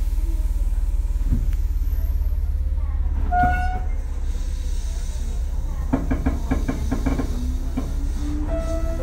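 Inside a Tobu 8000-series electric motor car: a steady low rumble from the running gear, a short high tone about three and a half seconds in, then from about six seconds a regular clatter and a motor whine rising steadily in pitch as the train gathers speed.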